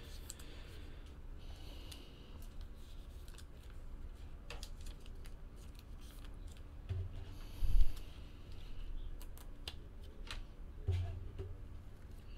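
Trading cards being slid into plastic card sleeves: soft, scattered rustles and small clicks of plastic and card. A dull thump comes about two-thirds of the way through, and a lighter one a few seconds later.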